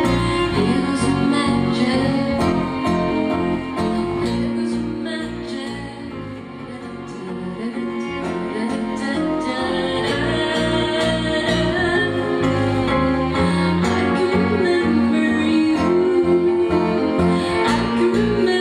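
Live music: a woman singing with her own acoustic guitar, a violin bowing alongside. The music softens briefly about six seconds in, then builds again.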